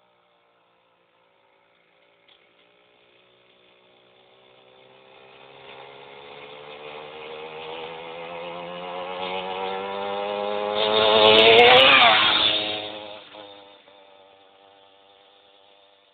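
Go-kart's small engine approaching, growing steadily louder, passing close by about twelve seconds in with a drop in pitch, then fading away.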